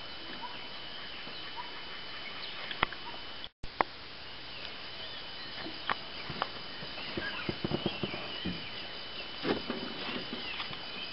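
Dry forest ambience: a steady high insect tone with scattered short bird chirps, and a cluster of light clicks and rustles in the last third. The sound cuts out completely for a moment about a third of the way in.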